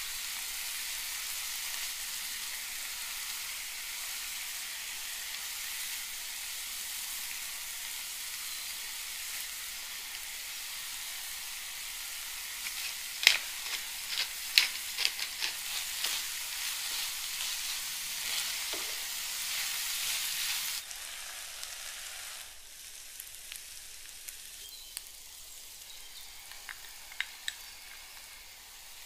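Diced chicken breast, mushrooms and red pepper sizzling in a nonstick frying pan, a steady hiss. A run of sharp clicks and taps comes about halfway through, and the sizzle drops quieter about two-thirds of the way in.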